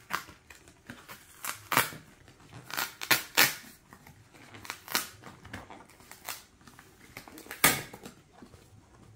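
Stiff cardboard box being handled and opened: an irregular series of sharp scrapes, snaps and rustles of card, the loudest about two seconds in, around three seconds in, and near the end.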